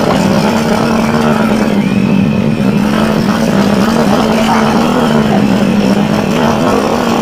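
Small motorcycle engine running at a steady, moderate speed, heard from on the bike while riding a rough path, over a rough noisy background.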